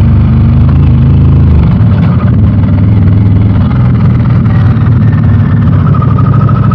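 Harley-Davidson Pan America's Revolution Max 1250 V-twin running loud and steady through a Screaming Eagle exhaust. Its deep note thins a little just under two seconds in.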